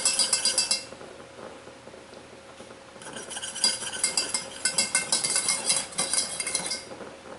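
A spoon clinking and scraping in quick strokes against the sides of a stainless steel saucepan, stirring a thickening cornstarch pudding, with a quieter pause of about two seconds after the first second.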